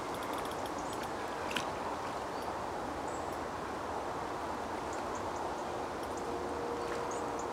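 Steady outdoor wind rustling through the lakeside reeds, with a few faint high chirps and ticks over it.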